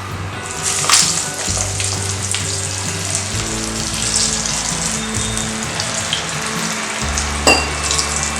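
Raw-banana vadas frying in hot oil: a steady sizzle that flares up sharply about a second in as a pressed patty goes into the oil, with another short flare near the end.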